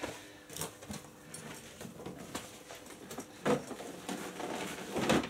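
Handling noise from a leather motorcycle bag being lifted and set down onto a rack: soft rustles and a few light knocks, the loudest about three and a half seconds in and just before the end.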